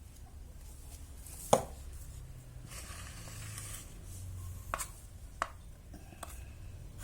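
Kitchen knife slicing shallots on a cutting board: a few sharp knocks of the blade on the board, the loudest about one and a half seconds in, with a short scraping sound in the middle.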